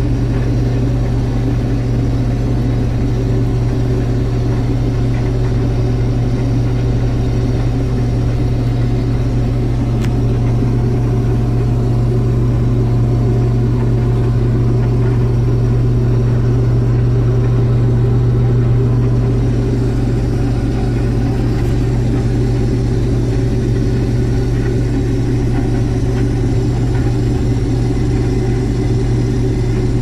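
Combine harvester running steadily while picking up and threshing a swathed crop, heard from inside the cab: an even, unchanging low drone.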